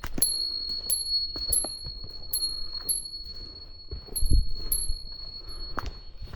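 A small bell jingling again and again, roughly every half second, with a high ring that carries on between strikes, along with a few dull thumps, the loudest about four seconds in.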